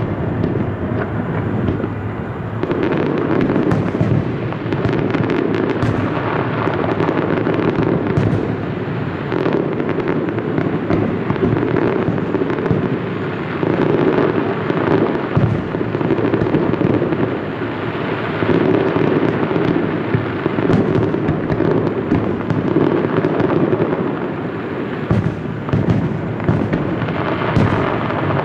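Aerial fireworks shells bursting in a continuous barrage: many overlapping booms and sharp cracks with no pause between them.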